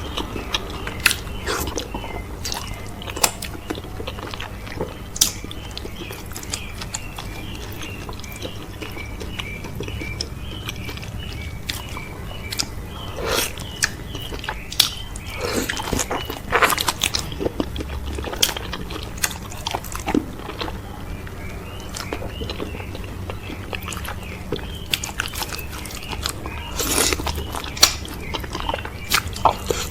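Close-miked biting and chewing of okra soup with cow foot and fufu: wet, irregular mouth smacks and clicks with occasional crunches, coming in thicker, louder clusters about halfway through and again near the end.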